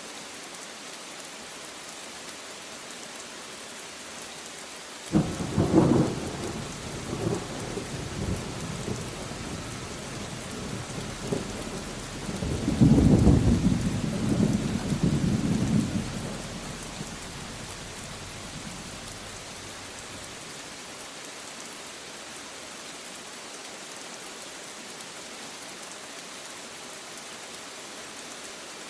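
Steady rain with two rolls of thunder: a sudden clap about five seconds in that rumbles on for a few seconds, then a louder, longer rumble near the middle that dies away, leaving the rain alone.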